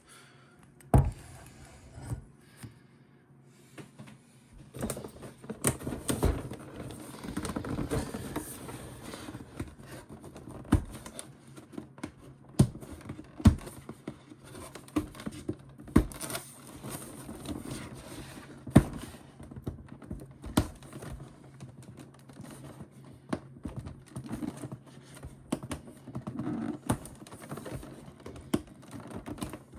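A large cardboard toy box and its plastic packaging being handled and opened by hand: scattered sharp taps and knocks over scraping, rustling noise, with a louder knock about a second in and several more through the stretch.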